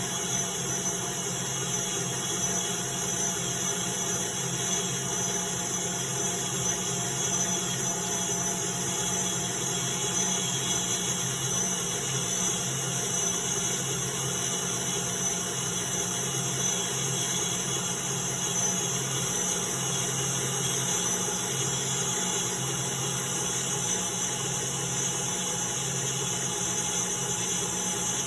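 KitchenAid stand mixer motor running steadily, its wire whisk beating instant coffee, sugar and hot water into a thick whipped cream.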